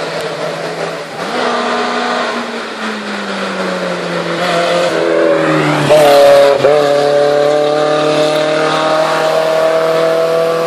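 Small rear-engined Fiat 600-type hillclimb race car, its engine lid open, racing uphill past at full throttle. The engine note climbs as it approaches, is loudest about six seconds in with two quick breaks as it shifts up, then climbs steadily again as the car pulls away.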